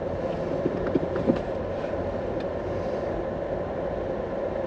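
Steady road and engine drone inside a moving car, with a few faint clicks about a second in.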